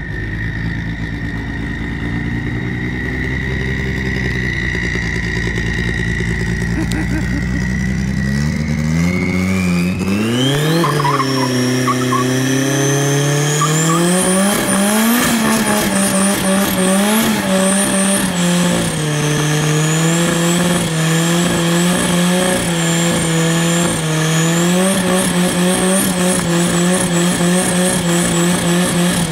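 The turbo Mazda engine of a Datsun GX coupe doing a burnout. It runs low and steady at first, then the revs climb sharply about nine seconds in and are held high, rising and dipping, while the spinning rear tyres squeal and smoke.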